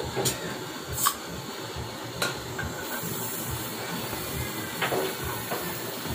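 Gas torch flame hissing steadily, with a few short sharp clicks and taps over it.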